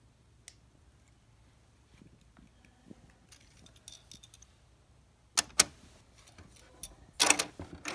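Hard plastic Playmobil toy pieces being handled and set on the playset: light clicks and rustles, then two sharp clacks about five and a half seconds in and a short clatter near the end.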